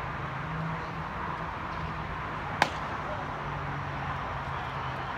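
A single sharp crack of a baseball impact about two and a half seconds in, over a steady low background murmur.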